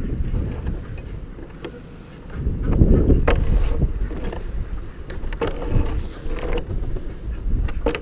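Snow shovel scraping snow off wooden boards in short strokes, over a low rumble on the microphone that swells about three seconds in.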